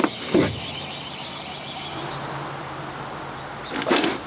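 Two short knocks, then a low, steady engine hum that sets in about half a second in. A brief louder burst comes near the end.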